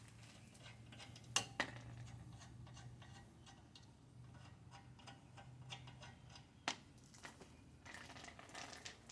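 Scattered metallic clinks and knocks of hand tools and suspension parts being handled, a few sharper knocks among them, over a faint low steady hum.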